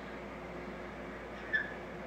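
Steady hiss of background noise from a TV set's audio, with one brief sharp sound about one and a half seconds in.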